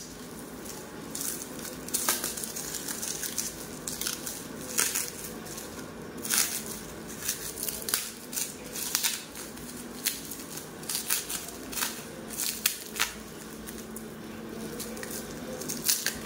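Clear plastic wrapping crinkling and crackling as it is peeled and pulled off by hand, with irregular sharp crackles that come and go.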